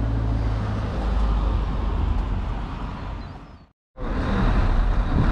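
Outdoor wind rumble buffeting the microphone, a steady low rumble with a hiss above it. It fades out a little past halfway, drops to silence for about half a second, then cuts back in.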